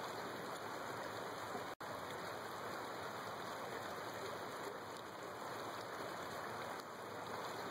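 Steady falling-rain ambience, an even hiss that cuts out for an instant about two seconds in.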